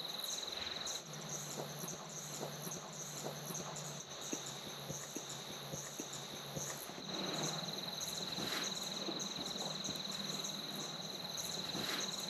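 Insects trilling in one steady, high, finely pulsing tone that stops about a second in and starts again at about seven seconds. A low steady hum and scattered faint ticks run underneath.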